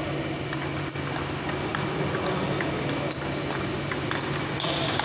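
Table tennis rally: the plastic ball clicking sharply off the paddles and table a handful of times, the loudest hits about three seconds in, over a steady low hum.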